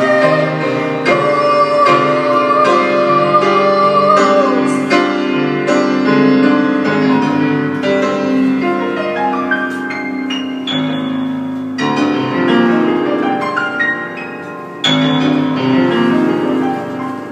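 Grand piano played in a free, improvised style, with chords and running notes. A woman's held sung note carries over the piano for the first few seconds and ends with a downward slide, leaving the piano alone.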